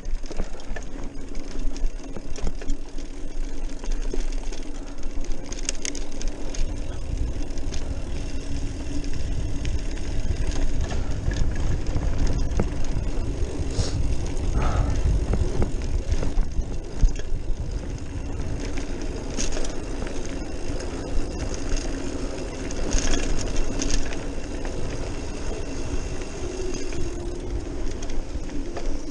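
Trek Marlin 5 hardtail mountain bike riding fast down a dirt trail: wind buffeting the camera microphone in a steady low rumble, with the tyres rolling over dirt and scattered clicks and rattles from the bike over bumps.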